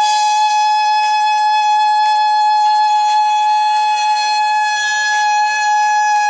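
Music: one long high note held steady for several seconds, sliding up into it and dropping away after, over a regular drum beat.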